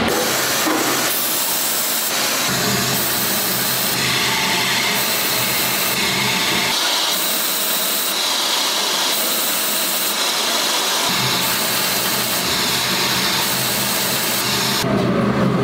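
Lathe running with its cutting tool shaving long ribbons off a spinning workpiece: a steady cutting hiss over a low machine hum. The hum comes in about two seconds in, drops away near the middle and returns a few seconds later.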